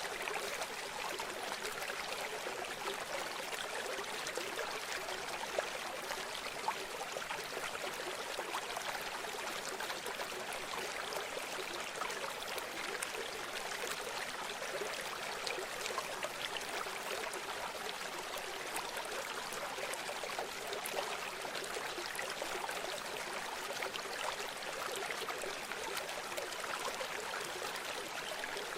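A shallow river or stream running steadily, a continuous rushing and trickling of water with fine splashy detail and little low rumble.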